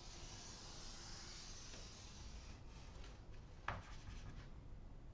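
Chalk drawing a long straight line on a chalkboard: a faint scratchy hiss for about two and a half seconds, then a sharp tap of chalk on the board nearly four seconds in.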